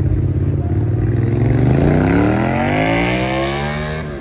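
A motor vehicle's engine accelerating: a steady engine note for a moment, then a pitch that climbs steadily over the last two and a half seconds as it revs up.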